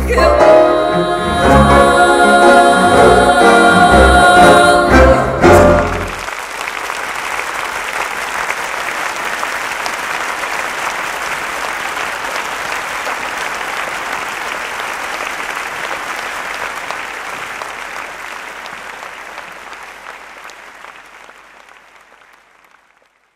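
Female voice and symphony orchestra finish a tango with closing chords about six seconds in, followed by audience applause that gradually fades out near the end.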